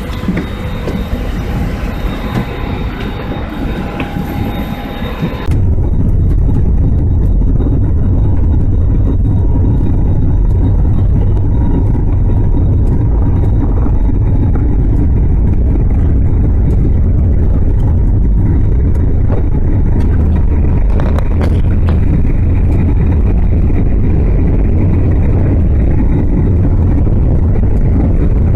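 Jet engines whining on the airport apron. About five seconds in this gives way abruptly to a loud, steady low rumble inside the cabin of a jet airliner rolling along the runway.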